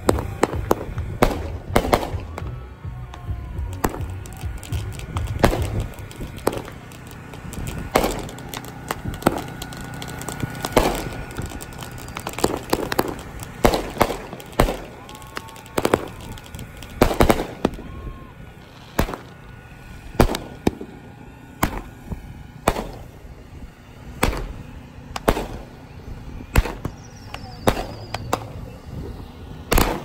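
Consumer fireworks going off: a long, irregular run of sharp bangs and pops, about one or two a second, as rockets and aerial shells burst overhead.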